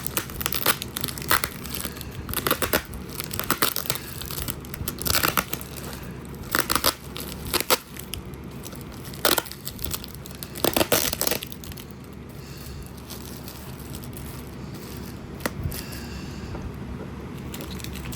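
Packing material crinkling, tearing and being crushed as a parcel is unpacked by hand, in dense irregular crackles that thin out to quieter handling noise after about 11 seconds.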